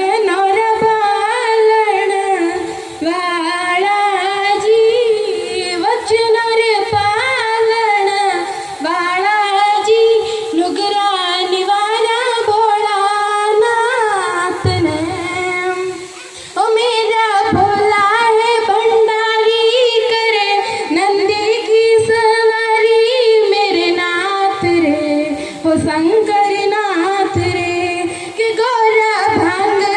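A girl sings a melodic song solo. Her voice wavers and ornaments the held notes, with a short break about halfway through.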